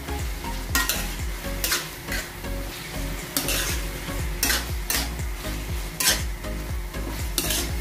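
Metal spatula scraping and turning pieces of pork and tomato around a metal wok, in strokes about once a second, over a steady sizzle of frying.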